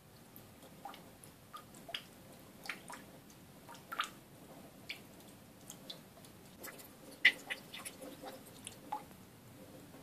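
Water drops falling irregularly into a bowl of water in a stainless steel sink, each one a short plink or small splash, the loudest about seven seconds in.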